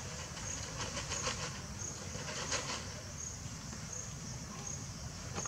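Outdoor background noise: a steady low rumble with a short, high-pitched chirp repeating evenly, about three chirps every two seconds.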